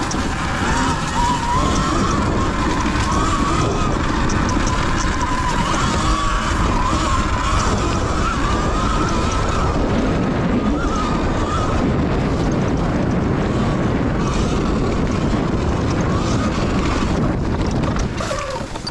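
Sur Ron electric dirt bike riding: the motor's thin whine wavers up and down with speed over a steady rush of wind on the microphone.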